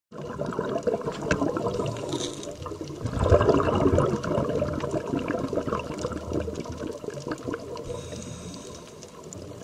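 Water rushing and bubbling with small crackles throughout, swelling to its loudest about three seconds in and easing off toward the end.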